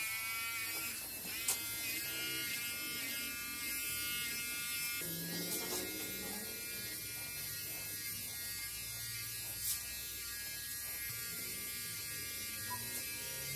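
Electric hair clippers running with a steady buzzing hum, broken twice by a short sharp click.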